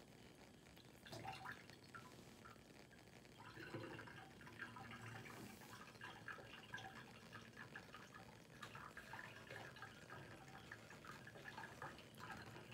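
Faint trickling and gurgling of tap water running through rubber tubing into a glass condenser, starting about a second in as the tap is opened and the condenser fills with cooling water.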